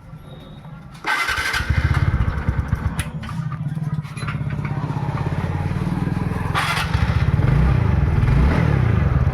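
TVS NTorq XP scooter's single-cylinder engine starting about a second in and then running with a steady low pulse, getting louder in two steps as it is opened up a little. The bad engine noise it came in with is gone, and the mechanic says the sound is now right.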